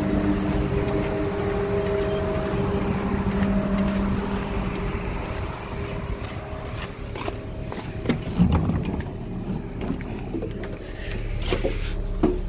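ÖBB class 5047 diesel railcar's engine running steadily while the railcar stands at the platform. In the second half come a few thumps and knocks, the loudest about eight seconds in and another pair near the end.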